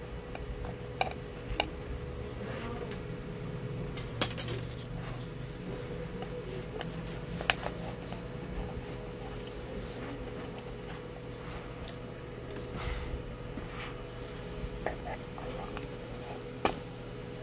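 Small metal tools and electronic parts being handled on a repair bench: scattered light clicks and clinks, a few sharper ones about four and seven seconds in, over a steady low electrical hum.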